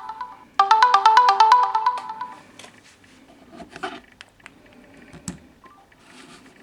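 A Samsung Galaxy phone playing a marimba-style ringtone: a quick run of bright notes that starts over about half a second in and stops about two seconds in. After it come only faint small clicks and knocks.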